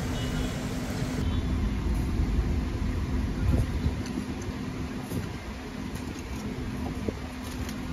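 Steady low rumble of restaurant room noise, with a few faint clicks.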